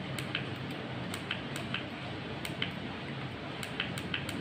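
Small push button on a battery state-of-charge voltage meter being clicked repeatedly, a few irregular light clicks a second, over a faint steady hum.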